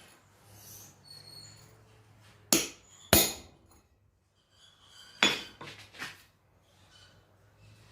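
Hand hammer striking the head of a freshly forged steel center punch, driving its tip into a piece of mild steel to test it: two sharp ringing blows half a second apart, then a second group of lighter blows a couple of seconds later.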